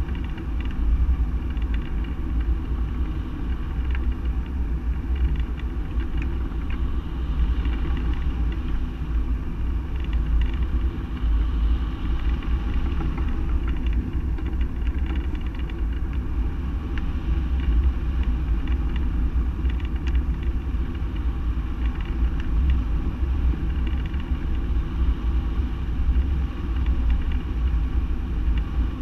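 Steady wind rush and rumble from the airflow buffeting the microphone of a camera mounted on a flying hang glider's wing.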